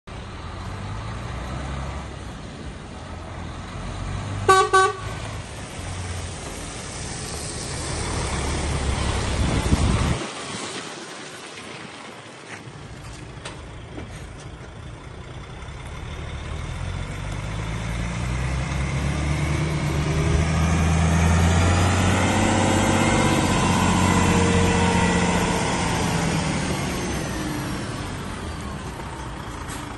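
DAF XF105 460 tractor unit's 12.9-litre straight-six diesel running as the truck drives up, growing louder through the middle of the second half and easing slightly near the end. Two short horn toots sound about four and a half seconds in.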